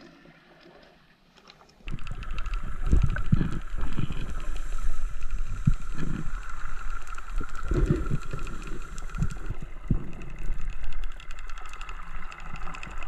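Muffled underwater sound picked up by a camera in its housing: irregular knocks and thumps with fine rapid clicking, over a steady whine that stops about two-thirds of the way through.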